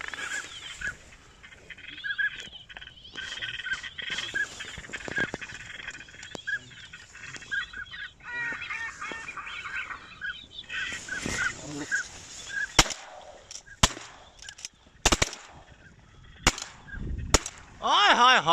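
Ducks calling in short, repeated honks and quacks for the first ten seconds or so. Then five or six shotgun shots, fired over a few seconds at ducks flying over.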